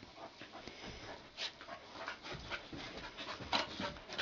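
Two young retriever puppies play-wrestling: scuffling, panting and short dog vocal sounds in an irregular run, louder about a second and a half in and again near the end.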